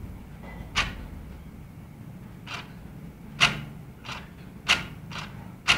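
A series of about seven short, sharp clicks at uneven intervals, the loudest a little past the middle, over a faint low hum.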